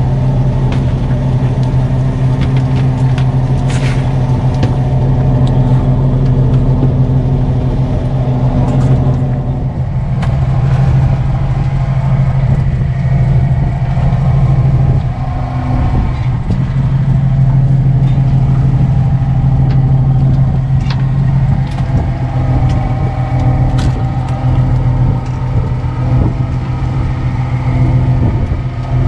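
Fishing boat's engine running with a steady low drone, with a few sharp clicks and knocks from work on deck.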